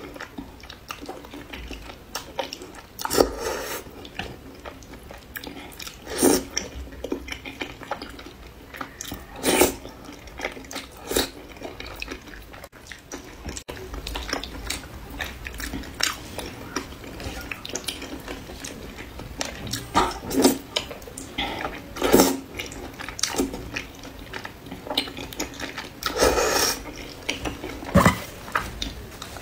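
Slurping and chewing of wide flat noodles in a thick sauce. Loud wet slurps come every few seconds over a steady stream of soft chewing and smacking.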